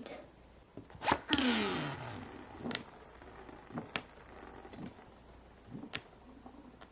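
A Beyblade toy's ripcord launcher pulled once, making a ratcheting zip whose pitch falls over about a second, followed by a few light clicks of small plastic parts being handled.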